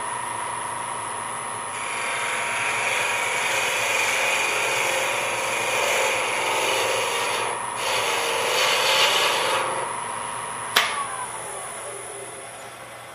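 Variable-speed wood lathe running at about 1300 rpm with a steady electric whine while a hand-held turning tool cuts a spinning pen blank, a rough scraping hiss in two passes with a short break between. About eleven seconds in there is a sharp click, the motor whine stops, and the lathe winds down.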